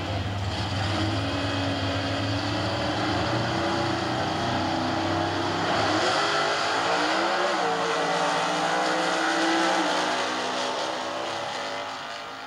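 Two Super Stock drag cars' engines running at the starting line, then launching about six seconds in and accelerating hard away down the strip, with a shift a second or so later. The engine sound fades near the end.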